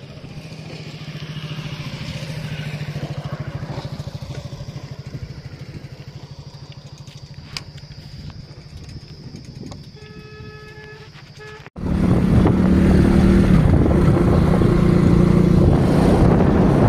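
A motorcycle engine runs steadily at a low hum. About twelve seconds in, after a sudden cut, it becomes much louder, with the engine running under wind rushing over the microphone as the bike rides along.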